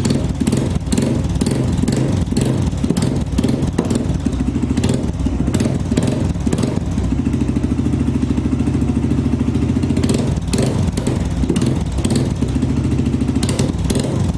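Suzuki GSR 150i's single-cylinder engine idling through a newly fitted aftermarket Roncar SS Oval sport exhaust, with an uneven pulsing note, just after being started.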